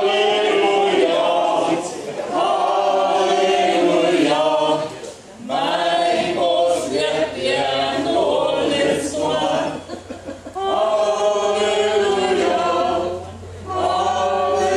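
Small amateur mixed choir of men and women singing together without accompaniment, in long held phrases with short breaks between them.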